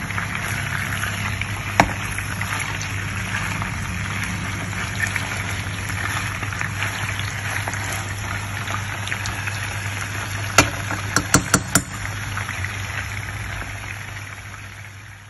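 Marinated chicken tikka pieces sizzling steadily in oil in a frying pan over a low flame, with a few sharp clicks about eleven seconds in. The sizzle fades out near the end.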